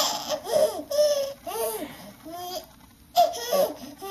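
A baby girl's excited vocal noises: a string of short gurgles and squeals, each rising and falling in pitch, with a brief pause and then a sudden loud squeal about three seconds in.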